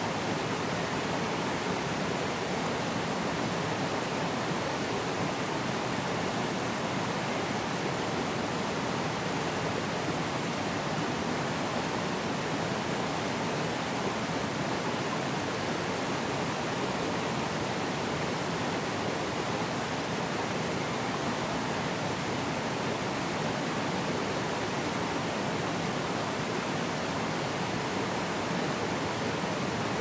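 Forest stream running over rocks and small cascades: a steady, even rush of water.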